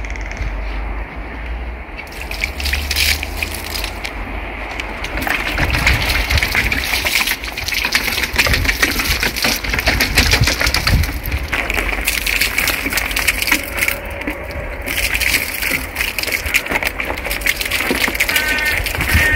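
Water poured from a large plastic bottle, splashing onto gravel; it gets louder a few seconds in.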